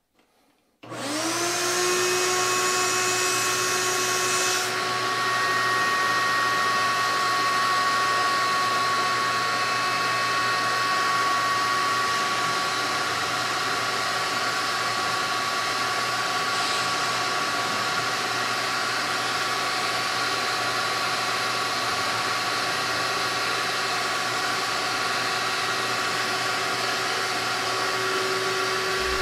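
Shop vac switched on about a second in, running steadily and driving a Dremel VRT1 vacuum-powered rotary tool with a drywall bit. Whining tones rise as it spins up over the first few seconds, and the highest one cuts out about four and a half seconds in. The air-driven tool slows as soon as it touches the drywall and makes no progress.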